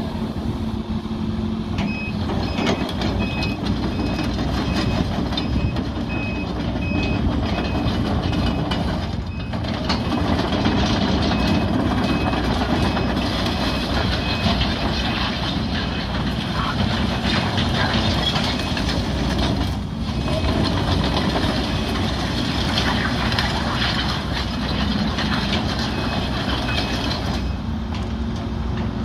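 2013 Link-Belt 130X3 hydraulic excavator working, its diesel engine running steadily under hydraulic load. A beeping alarm sounds repeatedly through much of the first half.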